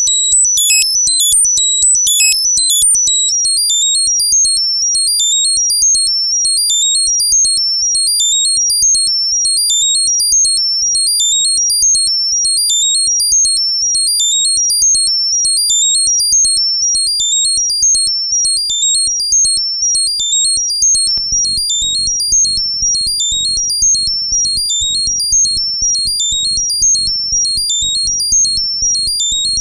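Arturia MicroBrute analog synthesizer playing a fast step-sequenced pattern of very high, chiptune-like bleeps. This is its hidden effect: a sequence recorded while holding the tap button pushes the synth far up in pitch. A faint lower part joins about two-thirds of the way in.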